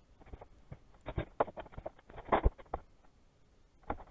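Irregular run of clicks and knocks from clamps and hand tools being picked up and set down on a wooden workbench, the loudest knocks about two and a half seconds in and again near the end.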